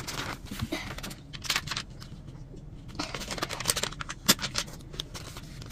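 Clear plastic bag rustling and crinkling as it is handled, with scattered sharp clicks and taps.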